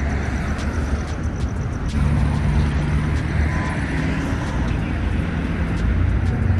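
Street traffic: vehicle engines running and passing, with a low engine hum that grows louder about two seconds in.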